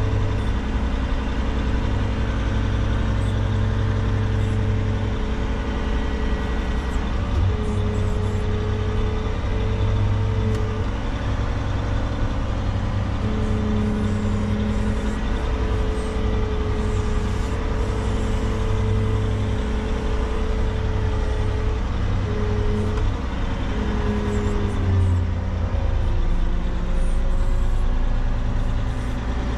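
Caterpillar 730 articulated dump truck's diesel engine running steadily, heard from inside the cab as the truck moves. Over it, a higher steady whine drops out and returns several times.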